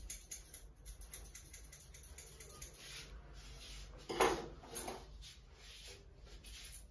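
Barber's straight razor cutting hair at the temple and sideburn: many small scratchy clicks, with a louder brushing rustle about four seconds in.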